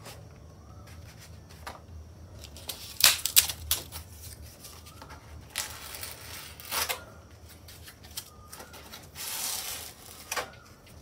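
Hands handling and pressing foam wing pieces together: a cluster of sharp clicks and taps about three seconds in, more taps around six to seven seconds, and a short scraping rub of foam near the end.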